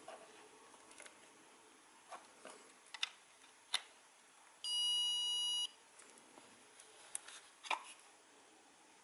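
AOMWAY Commander FPV goggles' built-in buzzer giving one steady, high beep about a second long near the middle. Light clicks and taps from the goggles' plastic housing and straps being handled come before and after it.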